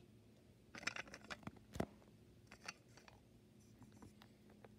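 Faint, scattered clicks and taps of small plastic toy figures and a plastic toy car being handled and set down on carpet, the loudest tap a little under two seconds in.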